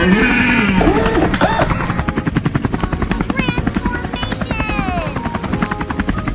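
Cartoon helicopter rotor sound effect: a rapid, even chopping beat. Over it come a few short pitched cries that slide up and down.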